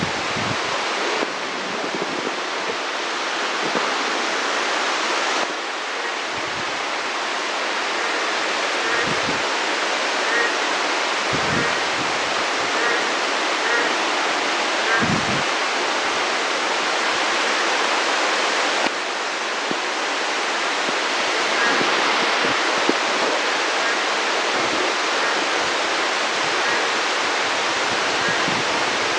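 Heavy monsoon rain falling steadily, a dense even hiss, with a few soft low thuds.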